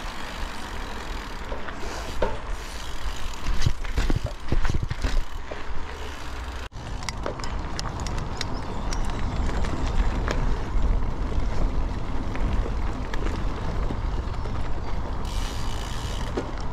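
Bicycle ride heard through an action camera: steady wind rumble on the microphone with rolling noise, and a cluster of rattles and knocks a few seconds in. The sound cuts out for a moment partway through.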